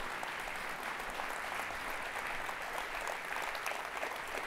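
Audience applauding steadily, a dense, even patter of many people clapping at once.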